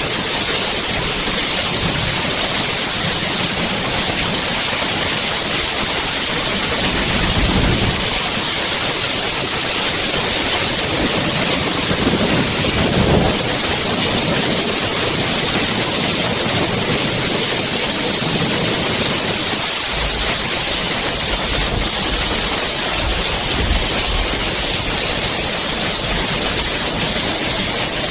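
Steady heavy rain falling, a dense even hiss of drops, with a few brief low rumbles underneath now and then.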